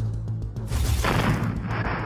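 Sound effect of an artillery gun firing: one boom about two-thirds of a second in, dying away over about a second, over background music.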